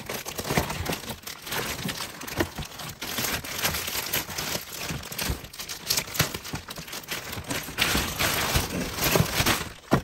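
Clear plastic wrapping crinkling and rustling as it is pulled and slid off a handheld vacuum cleaner, with many small crackles throughout.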